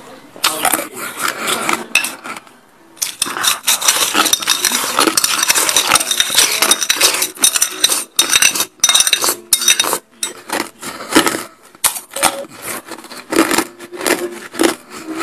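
Ice being crunched and chewed close to the microphone, with a metal spoon clinking and scraping in a bowl of ice. After a short lull early on, the crunching runs dense and crackly for several seconds, then thins out to scattered crunches.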